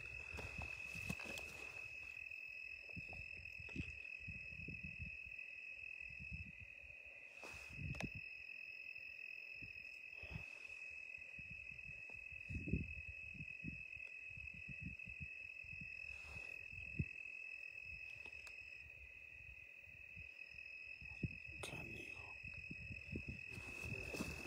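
Footsteps on a rocky dirt trail, irregular soft thuds every second or two, with a steady high-pitched insect trill running underneath and a few sharp clicks.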